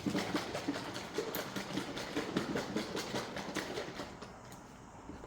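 A container of coconut beverage shaken hard by hand, its liquid sloshing and thudding in quick, even strokes for about four seconds before it stops.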